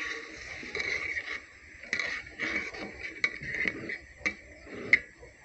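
Metal spatula stirring and scraping a sauce of chili paste and tamarind water around a wok, with a few sharp clinks of metal on the pan.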